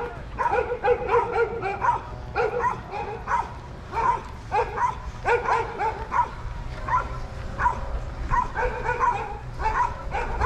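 A dog barking over and over, roughly once or twice a second, over a low rumble of wind on the microphone.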